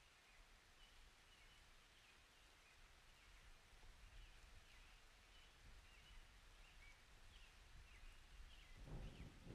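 Near silence with faint, short, repeated high chirps of small birds over a low rumble. A louder low rushing noise starts near the end.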